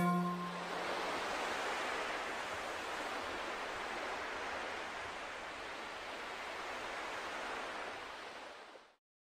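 A steady, even hiss-like noise with no pitch or rhythm, left over after the music ends. The last low note rings out briefly at the start, and the noise fades to silence about nine seconds in.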